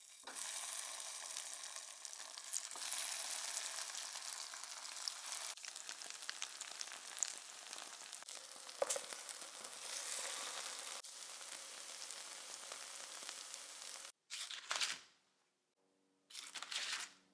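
Eggplant patties sizzling in hot oil in a skillet: a steady frying hiss with scattered crackling pops. It cuts off abruptly about fourteen seconds in, and is followed by two short bursts of sound with a silent gap between them.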